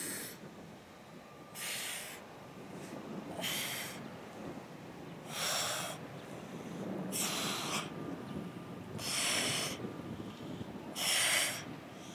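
A woman's sharp, forceful exhales, one with each crunch as she curls up, coming about every two seconds, seven in all.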